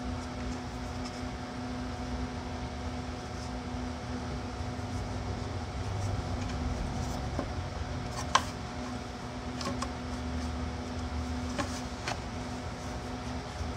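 Steady mechanical hum in the shop, with a few light clicks and knocks as glued wooden box parts are handled and fitted together. The sharpest knock comes a little past halfway.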